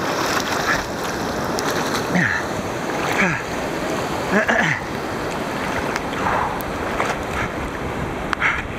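Whitewater rapid rushing and churning right around the camera as a swimmer is carried through it, with a few short gurgling sounds that slide down in pitch.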